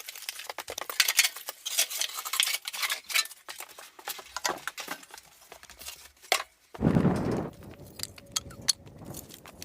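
A quick run of light clicks and clinks, small hard objects being handled. About seven seconds in comes a brief rush of noise, followed by a few fainter clicks.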